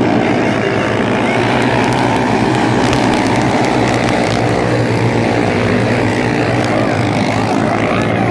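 Engines of a pack of small speedway sprint cars running together on a dirt track, a steady loud drone.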